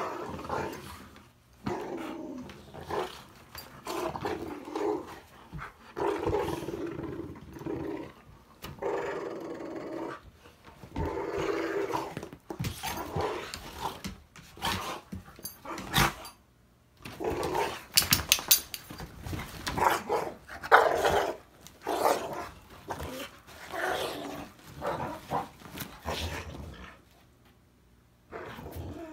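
Two pit bulls growling in play as they wrestle, in repeated bursts. Sharp clatters and scuffles are mixed in, loudest about two-thirds through, and the growling dies down near the end.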